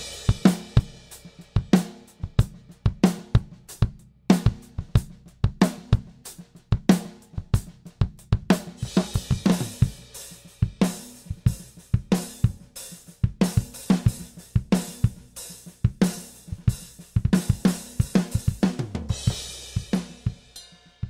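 A 1967 Ludwig Hollywood drum kit playing a groove of kick, snare, toms, hi-hat and cymbals, with heavier cymbal wash in the middle and near the end. It is heard first through Avantone CDMK drum microphones and then, partway through, through a budget CAD Pro 7 drum mic kit.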